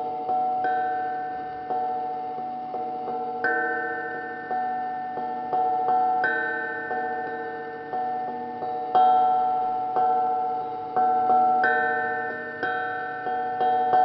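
Hamon, an iron folk instrument, played slowly: single struck notes at several pitches, roughly one a second, each ringing on and fading into the next.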